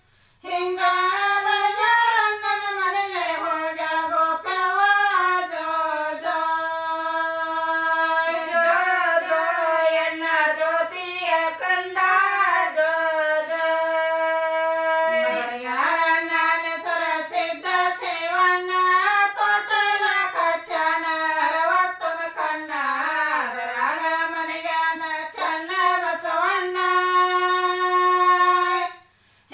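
A woman's voice singing a jogula, a Kannada cradle lullaby, as one slow melodic line with long held notes and gliding turns. The song drops out briefly at the very start and again just before the end.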